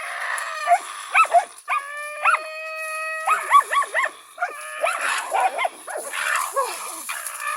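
Karelo-Finnish Laikas barking at a raccoon dog in rapid, short, high yaps. About two seconds in, one long held howl-like whine rises over the barking.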